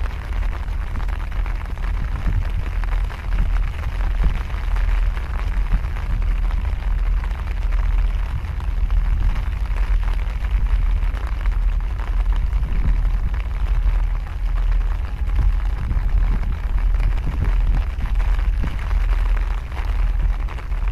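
Wind buffeting the microphone: a heavy, uneven low rumble that swells and eases, over a steady hiss.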